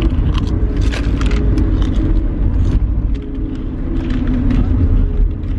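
Steady low road rumble inside a moving car's cabin, with scattered light clicks and rustles.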